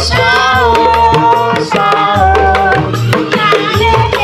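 Music played loud through a portable speaker stack: a melody line over deep bass and a steady drum beat.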